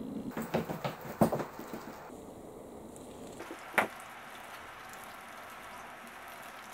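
Plastic soda bottle full of Coca-Cola being grabbed and shaken hard: a quick run of knocks and clicks from the bottle in the first two seconds, and a single sharp click nearly four seconds in.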